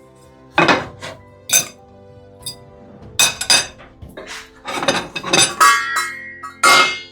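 Kitchen utensils and dishes clinking while food is served: a string of separate knocks and clinks, one ringing briefly about two-thirds of the way in.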